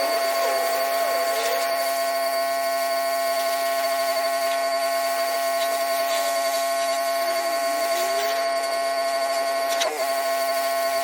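Pressure washer running steadily: a constant machine whine at one unchanging pitch with several higher overtones, and a brief knock about ten seconds in.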